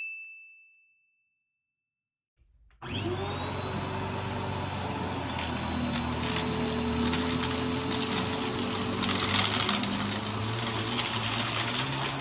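A single chime rings and fades at the start. About three seconds in, an upright vacuum cleaner switches on, its motor whine rising to a steady pitch, then runs with a crackling crunch as it sucks up confetti, glitter and debris from a shaggy rug.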